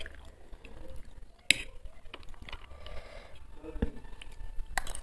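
A metal fork scraping and clinking against a ceramic bowl while noodles are twirled. A sharp clink comes about a second and a half in and another near the end, between soft mouth noises of eating.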